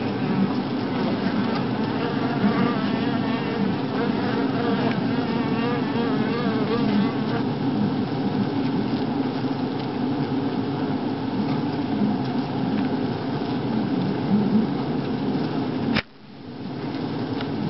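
A dense honeybee colony buzzing steadily on its natural comb in an open log hive, a loud, even hum of many bees at once. About sixteen seconds in a single sharp click cuts in, and the hum dips briefly before swelling back.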